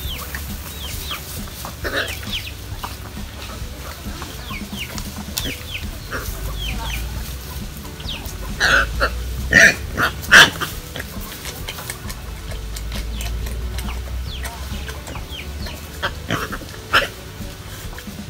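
Chickens clucking, with a cluster of louder calls between about nine and ten and a half seconds in.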